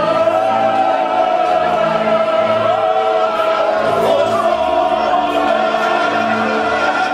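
Male singer singing an operatic song through a microphone, with musical accompaniment. He holds one long note with vibrato for the first few seconds, then moves on through shorter notes.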